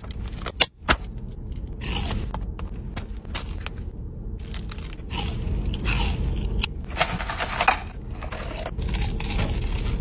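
Crispy fried chicken breading crackling and crunching as gloved hands tear it apart and press it into a bun, with scraping against the cardboard box. A steady low hum runs underneath.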